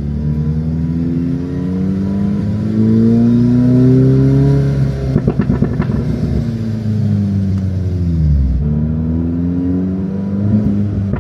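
Car engine revving, its pitch climbing slowly for several seconds, with a burst of rapid crackling pops about halfway through, then dropping and climbing again near the end.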